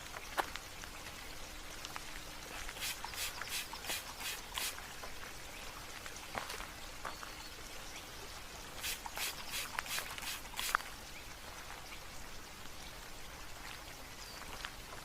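Patio ambience of trickling, dripping water with scattered light drips, and birds chirping in two quick runs of about five sharp notes, one a few seconds in and another around the middle.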